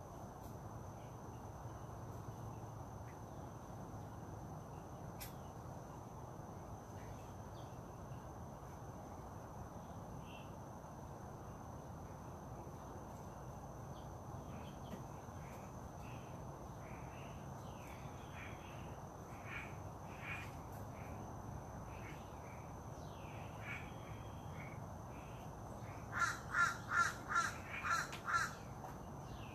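A steady, high, thin insect drone and scattered short bird chirps over low outdoor rumble, then near the end a crow cawing about six times in quick succession.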